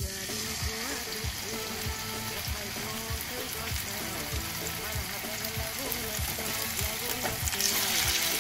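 Marinated chicken breast sizzling in hot oil in a frying pan, starting as it is laid in. The sizzle grows louder near the end as a second piece goes into the pan.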